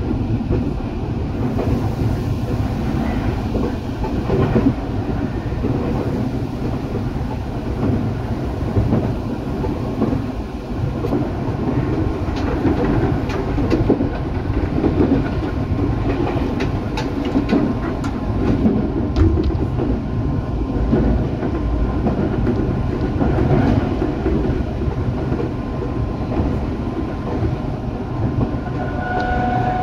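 Eidan 8000 series electric train running: a steady rumble of wheels on rail with scattered clicks. Near the end a whine starts and slowly rises in pitch.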